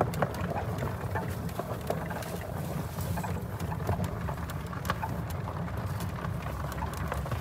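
Golf cart driving along a gravel drive: a steady low rumble of the cart and its tyres rolling over gravel, with faint scattered crackles and wind on the microphone.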